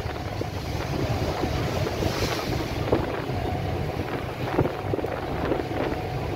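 Wind buffeting the microphone on a moving boat, over a steady low rumble of the boat and the water, with a few brief thumps.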